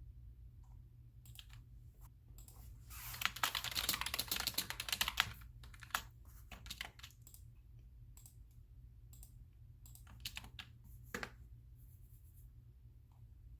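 Computer keyboard typing: a quick run of keystrokes about three seconds in, lasting a couple of seconds, then scattered single key clicks.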